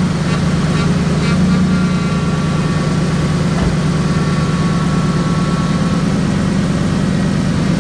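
2005 Ford F-150's 5.4-litre V8 idling steadily with its new power steering pump fitted and the system bled of air, with a faint thin whine over it for a few seconds in the middle. The loud power steering pump noise is gone.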